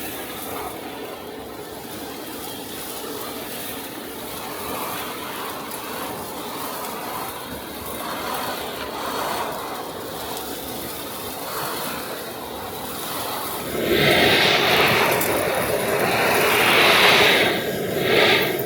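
ECOBULL TAN industrial vacuum's 480-volt three-phase side channel blower running steadily as it sucks up foundry debris and drill chips through the hose. About fourteen seconds in the sound grows much louder for several seconds, with a couple of surges.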